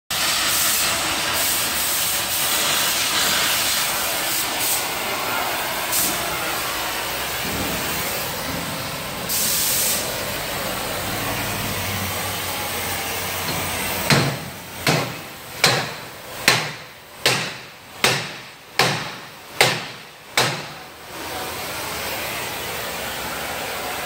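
Cutting torch hissing steadily as it cuts and heats a seized rear wheel hub on a Subaru, with one brief louder blast of gas. Midway through come nine hammer blows on the hub, under a second apart, each ringing briefly, to drive the hub loose.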